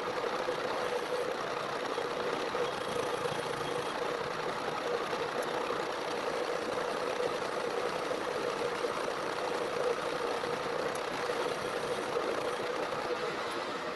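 Metal lathe running, its cutting tool turning a section of steel drill pipe spinning in the chuck. A steady machining noise with one steady tone in it.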